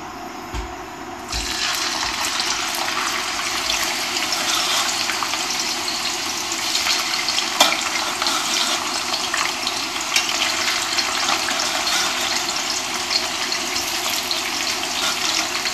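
Par-boiled potato fingers deep-frying in hot vegetable oil. A dense, crackling sizzle starts abruptly about a second in, as the batch goes into the oil, and holds steady.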